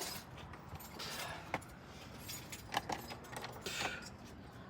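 Metal clinking and rattling with a few sharp knocks, as a truck's front brake rotor is worked loose and knocked off the hub.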